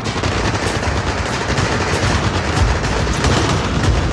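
Rapid, continuous gunfire, the shots running together without a break.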